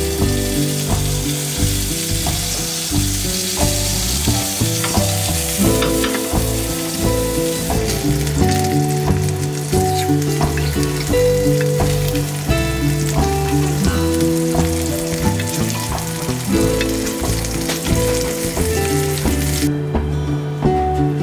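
Homemade sausages frying with a steady sizzle over background music; the sizzling cuts off abruptly shortly before the end.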